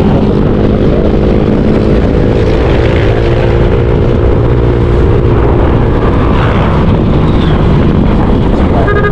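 Motorcycle engine running at a steady pace while riding, under heavy wind noise on the microphone; the engine note eases down slightly about five seconds in.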